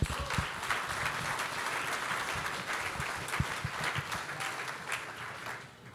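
Audience applauding, dying away just before the end.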